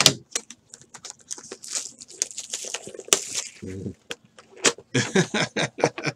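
A sports card hobby box being handled and opened by hand: crinkling and tearing of wrap, cardboard and paper, with many sharp clicks and taps.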